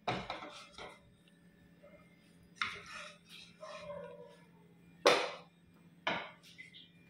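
Serving spoon knocking and scraping against a pan and bowls while chicken curry is dished out: a handful of separate short clatters a second or so apart.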